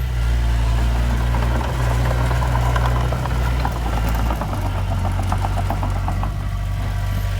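Heavy diesel engine of an earthmoving machine running steadily, its note changing about four and a half seconds in, with a run of rapid ticking over it in the middle.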